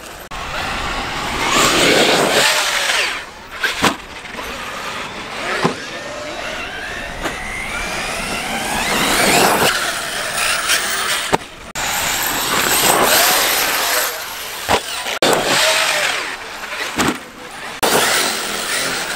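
Large electric RC cars driving on a dirt track: the high motor whine rises and falls in pitch as they accelerate and slow, over tyre and dirt noise, with a few sharp knocks.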